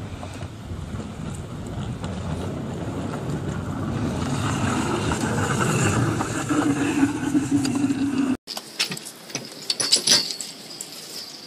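Railroad velocipede, a hand-pumped rail cycle, rolling along the track: a steady rumble of its wheels on the rails that grows louder, with a steady hum joining near the end. About eight seconds in the sound cuts off suddenly to a rail vehicle's wheel rolling slowly over track switch points, giving a run of sharp metallic clicks and clanks.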